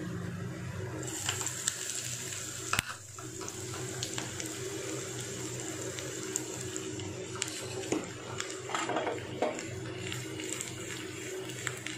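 Finely chopped garlic frying in hot ghee in a small steel tadka pan: a steady sizzling hiss that starts about a second in, after the garlic goes in, with a sharp click a few seconds in.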